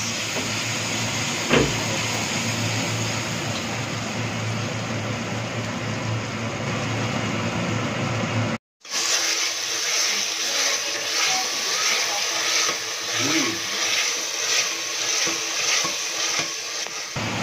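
Mustard paste frying in hot oil in an aluminium kadhai, a steady sizzle over a low hum, stirred with a steel spatula. There is a short knock about a second and a half in. The sound cuts out for a moment about halfway, after which the sizzle comes back brighter, with quick crackles.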